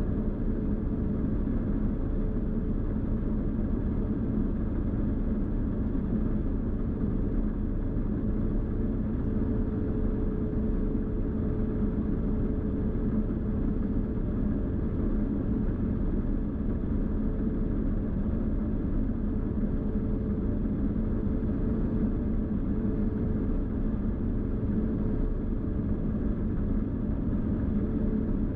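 New Holland TX66 combine harvester running steadily while harvesting wheat: a continuous low rumble with a steady hum in it.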